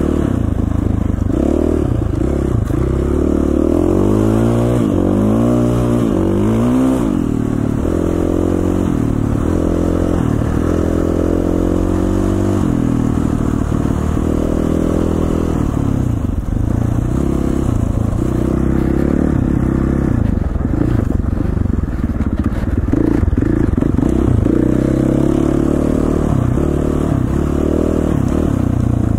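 KTM 450 dirt bike's single-cylinder four-stroke engine pulling under load, its pitch rising and falling repeatedly as the throttle is worked through the first half, then running at a steadier pitch.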